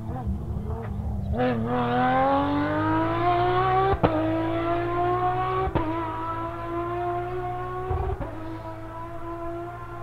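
Porsche 997 GT3's flat-six engine accelerating hard through the gears, its note swelling in about a second and a half in and climbing steadily. Upshifts at about four, just under six and about eight seconds in each give a sharp crack and a small drop in pitch before the climb resumes.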